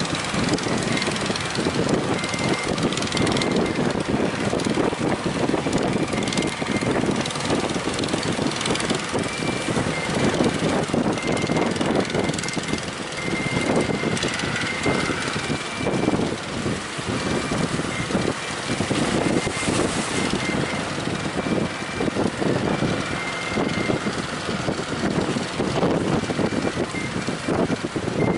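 Steady engine drone of a fishing boat running at speed, mixed with strong wind buffeting the microphone.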